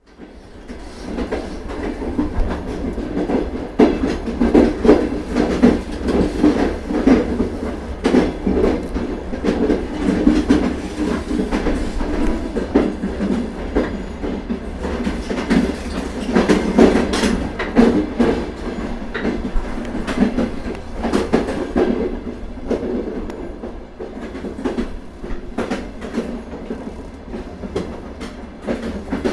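Interior of an old railway carriage in motion: a continuous low rumble with irregular clatter, rattles and knocks from the wheels on the rails and the carriage body. It fades in over the first couple of seconds and swells louder twice.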